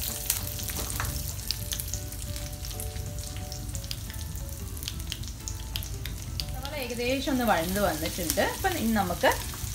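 Chopped onions sizzling in hot oil in a nonstick kadai, stirred with a spatula that clicks and scrapes against the pan now and then. A voice talks over the frying in the last few seconds.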